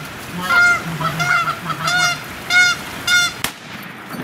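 Goose honking: a run of about six loud, evenly spaced honks from a goose flying in, cut off abruptly near the end.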